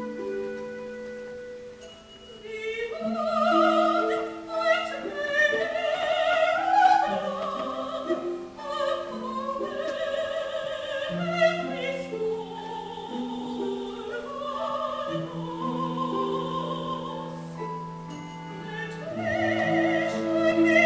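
Soprano soloist singing a slow line with wide vibrato over a classical orchestra holding sustained chords. The orchestra plays alone for about the first two seconds before the voice enters.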